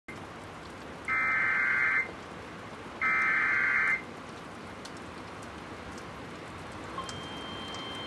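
Emergency Alert System SAME header coming over an FM radio: two one-second bursts of buzzing digital data tones, a second apart, over steady radio hiss. A steady alert tone starts faintly near the end.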